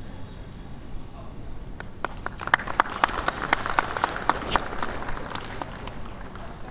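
Brief, scattered applause: a few people clapping, starting about two seconds in, thickening for a couple of seconds and dying away.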